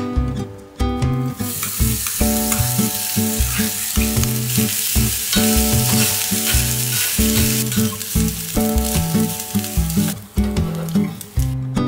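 Chopped bacon sizzling and being stirred with a spoon in a cast-iron pot lid used as a small frying pan. The sizzle starts about a second and a half in and stops just before the end. Acoustic guitar music plays underneath.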